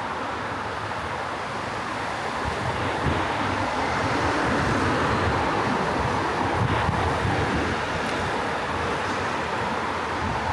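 Busy city street traffic noise that swells as a vehicle passes in the middle and then eases, with wind buffeting the microphone.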